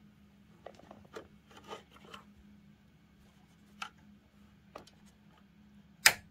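An SSD's cable connector is handled and pushed into its port on a computer motherboard. There are faint rustles and small ticks, then one sharp click a little before the end as the connector seats and latches fully home.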